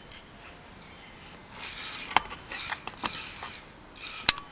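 Small clicks and rubbing from handling a car headrest DVD player while its disc is changed, with one sharper click near the end.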